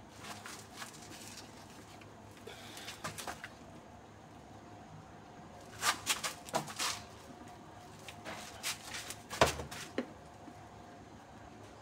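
Scattered knocks and clatter of cut feed pieces being handled and laid into plastic basins, coming in small clusters, with the sharpest knock about nine and a half seconds in.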